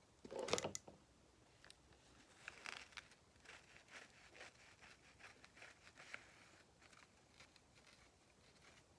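Faint handling noises: one short rustling scrape a little under a second in, then soft, irregular scratching and light ticks.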